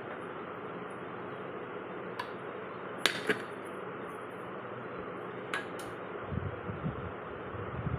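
Round metal cake tin clinking and knocking against a plate as a baked cake is turned out of it: a few sharp clicks, the loudest pair about three seconds in, then dull low knocks near the end, over a steady hiss.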